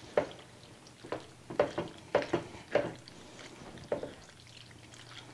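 Spatula stirring cooked pasta and chicken through a thick cheese sauce in a skillet: soft wet squishing and scraping strokes at an uneven pace, stopping about four seconds in.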